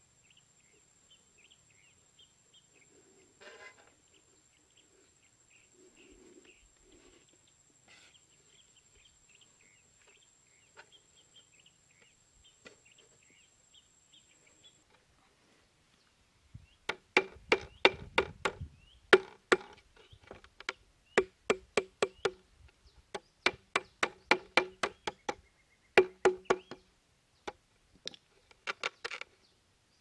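Sharp knocks in quick runs of several strikes each, starting about halfway through: the back of a hatchet hammering a bent wire hook down into hard ground to pin a plastic bottle in place. Before the hammering there are only faint high chirps.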